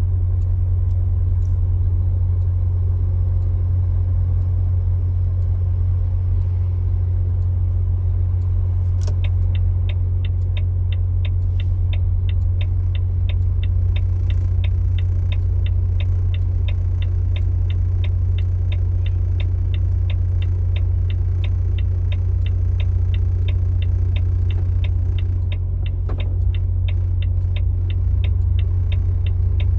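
Road vehicle driving on the highway, heard from inside the cab: a steady low engine and road drone. From about nine seconds in, a regular ticking of nearly three ticks a second joins it, with a brief break near the end.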